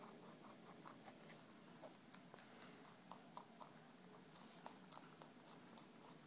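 Faint, irregular crisp clicks and crackles, two or three a second, as a young rabbit noses into a clear plastic bag after food.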